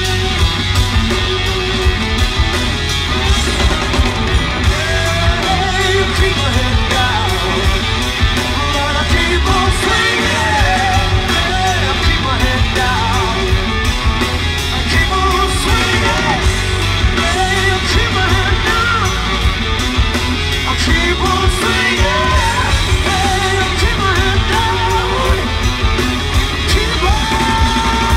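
Rock band playing live: electric guitars, bass, keyboards and drums with a male lead singer's voice over the top, recorded loud from the crowd in front of an outdoor stage.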